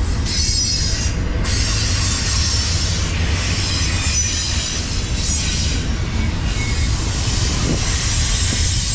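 Double-stack intermodal container cars rolling past on the rails: a steady low rumble of wheels and cars, with a high hissing squeal of steel wheels on the rail.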